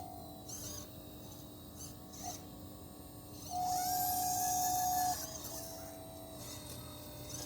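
Electric motors of a 1/12 scale RC excavator running with a steady whine. The whine gets much louder for about a second and a half near the middle as a movement is driven under load, then drops back to a quieter hum.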